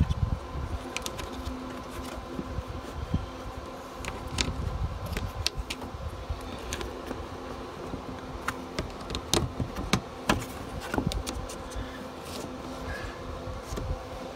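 A small electric motor humming steadily, with scattered light clicks and taps.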